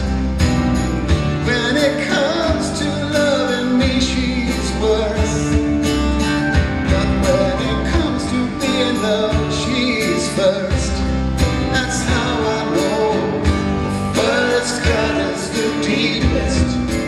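Live acoustic song: strummed acoustic guitars with a man singing.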